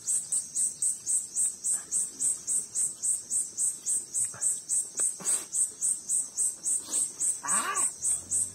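Insect chirping, a high-pitched pulse repeating steadily about four times a second. A short voice sound comes near the end.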